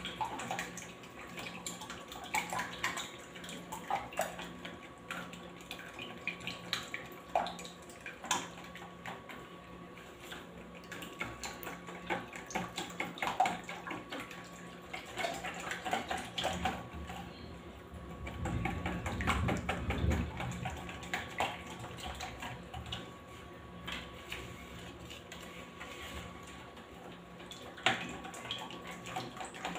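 A runny cake mixture of eggs, melted margarine, sugar and milk being whisked in a plastic bowl: irregular wet sloshing with many light clicks against the bowl, busiest about two-thirds of the way through.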